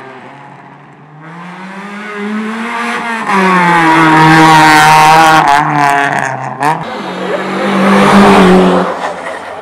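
A car's engine at full throttle on a timed lap. Its note climbs as it comes closer, breaks briefly a little past halfway, then pulls again, and it is loudest as the car passes close by about eight seconds in.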